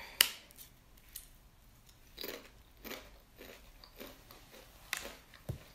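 A person biting into a crisp sour cream and onion long chip with one sharp crunch, then chewing it with a few softer, irregular crunches.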